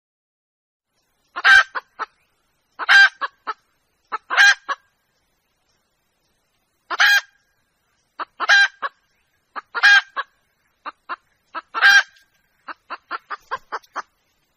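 Red junglefowl hen calling to a rooster: seven loud, harsh call notes a second or two apart, each trailed by two or three short clucks, then a quicker run of short clucks near the end.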